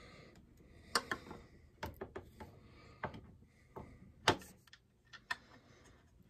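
Irregular clicks and knocks as a chainsaw handlebar is handled and fitted against a Homelite Super XL-130 chainsaw body, with one sharper knock about two-thirds of the way in.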